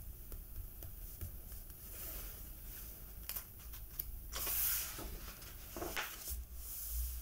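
A page of a large comic album being turned by hand: light paper ticks and rustles, with a papery swish about four and a half seconds in and a shorter one about a second later.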